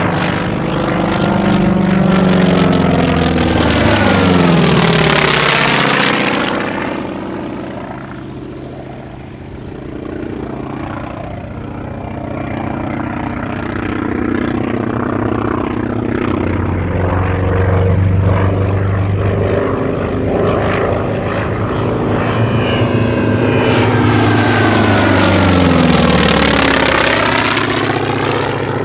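North American T-28B Trojan's Wright R-1820 nine-cylinder radial engine and propeller flying aerobatics. The plane makes two loud passes, one a few seconds in and one near the end, and on each the note sweeps down in pitch as it goes by. In between, the engine drones at a more distant, lower level.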